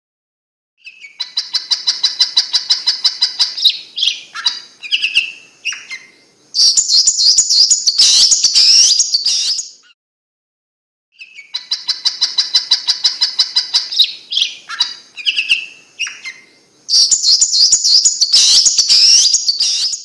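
Long-tailed shrike singing: a rapid run of repeated high notes, several short varied phrases, then a dense stretch of fast notes. The same song phrase plays twice, with a pause of about a second between.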